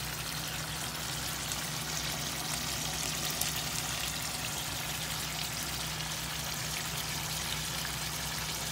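Pork baby back rib and boiled egg adobo simmering in a pan, the dark sauce bubbling with a steady fine crackle over a low steady hum.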